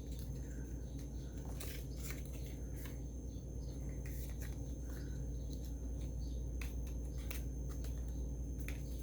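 Scattered light clicks and taps of small makeup items and packaging being handled, over a steady low hum.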